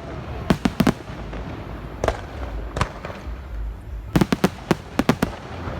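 Fireworks going off: scattered sharp bangs, then a quick run of six or seven bangs about four to five seconds in, over a low rumble.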